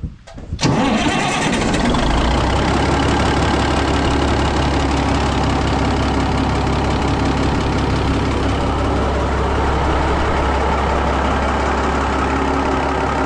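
Sawmill engine starting about half a second in and then running steadily and loudly, settling into an even low hum about two seconds in.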